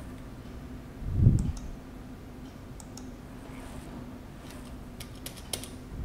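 Sharp clicks from a computer keyboard and mouse: a few scattered ones, then a quick cluster of about five near the end, over a steady low hum. A dull low thump about a second in is the loudest sound.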